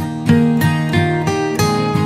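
Background music: acoustic guitar, picked and strummed, with a new note or chord every few tenths of a second.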